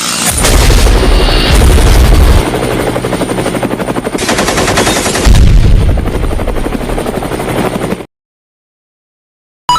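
Loud, rapid rattling noise, with heavier low rumbling near the start and again around five seconds in, cutting off abruptly about eight seconds in.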